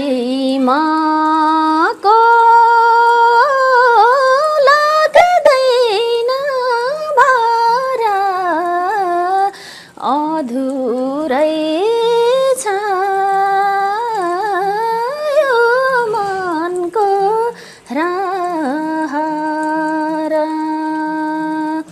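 A woman singing a slow melody in long held, wavering notes with ornamented turns, phrase after phrase with short breaths between.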